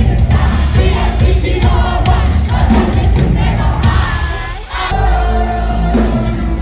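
Music with a crowd singing and chanting along, which changes to a different musical passage about five seconds in.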